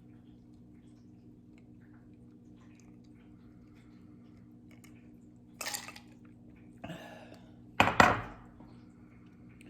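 A glass of sparkling water with ice clinking and knocking against a hard surface in three short bursts, the loudest about eight seconds in.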